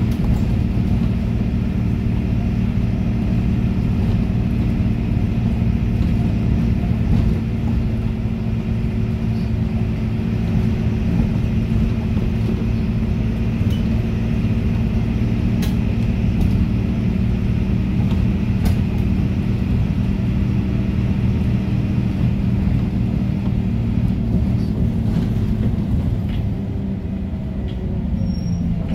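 MAN NL223 city bus's MAN D0826 diesel engine with ZF 5HP-500 automatic gearbox, heard from inside the bus while cruising steadily, with tyre and road noise. Near the end the engine note falls as the bus eases off.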